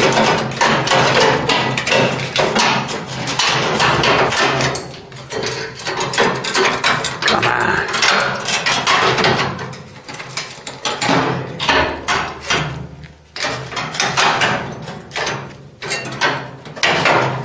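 Hammering on the Cortina's sheet-steel body panels: sharp metal strikes, packed close together at first and then more spaced out through the second half.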